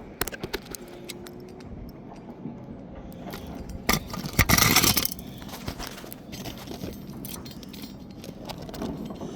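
Small metal items clinking and rattling with scattered clicks, and a louder scrape about four and a half seconds in: tools and materials being handled on the roof shingles.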